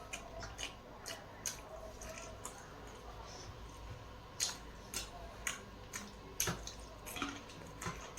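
Eating sounds: irregular wet clicks and smacks of chewing and mouthing food, about one or two a second, with several louder ones in the second half.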